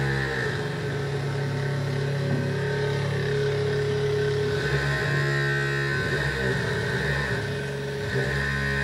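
Vibration motors of a Borsti bristlebot buzzing steadily as the little robot drives across the floor on its bristles. The pitch of the buzz shifts a few times as it is steered.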